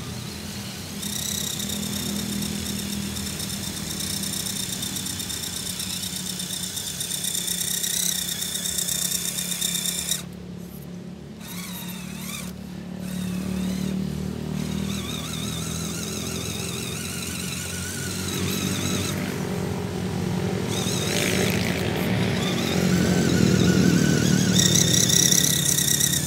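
Electric motors and gearboxes of RC scale crawler trucks whining as they climb a steep dirt slope. The high whine rises and falls with the throttle, breaks off briefly about ten seconds in, and grows louder near the end as the trucks come closer.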